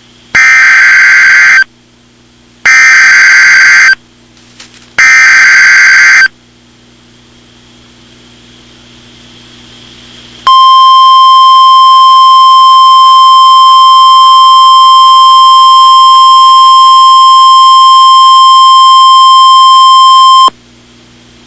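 Emergency Alert System alert opening: three harsh digital data bursts (the SAME header), each just over a second long and about a second apart. After a few seconds' pause comes a single steady, piercing attention tone held for about ten seconds, which cuts off suddenly.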